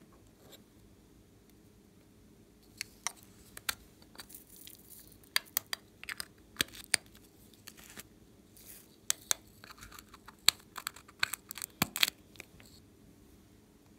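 Small plastic containers clicking and tapping as they are opened and handled, starting about three seconds in, with a light rustle of glitter and sequins being shaken out onto slime.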